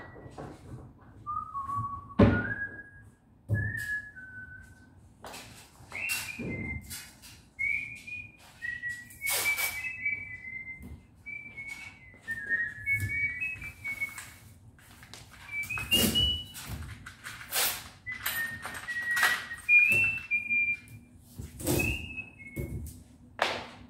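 Someone whistling a tune in short notes, with sharp clicks and knocks from handling the metal door handles and hardware of a cabinet.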